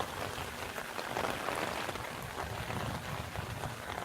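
Steady rain falling, an even hiss scattered with small ticks of drops.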